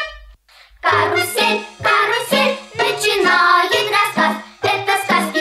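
Upbeat children's-style background music with singing, starting about a second in after a short note fades out.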